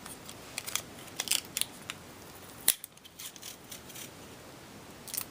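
Scotch tape being pulled off and cut or torn: a run of small crinkly crackles and clicks, with a sharp snap about two and a half seconds in and another near the end.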